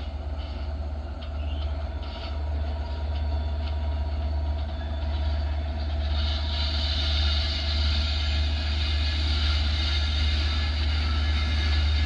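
Diesel locomotive hauling an express train on its approach: a steady low engine drone, with a higher hiss of the train on the rails building about halfway through as it comes closer.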